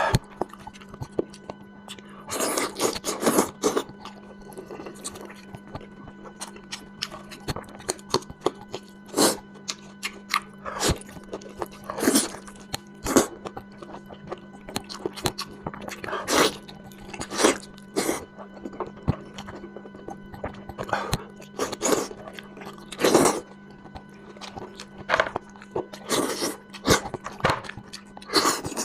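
A person eating spicy lamb head close to the microphone: irregular chewing, biting and crunching sounds.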